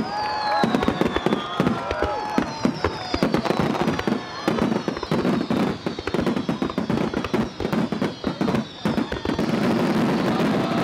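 Aerial fireworks display: a rapid, dense salvo of shell bursts and crackling, with several high whistles gliding down in pitch through the first half.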